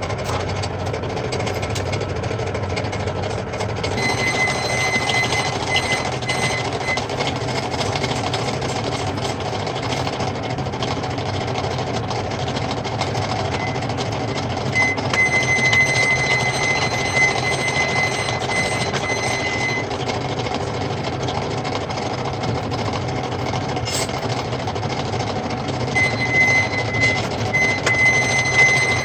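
Metal lathe running steadily while cutting a square thread in a large bolt, with a thin high whine that comes and goes several times.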